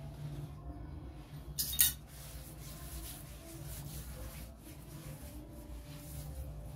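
Metal spoon giving a quick pair of sharp clinks about two seconds in, then scraping and rubbing softly as cooking oil is smeared over rolled chapati dough.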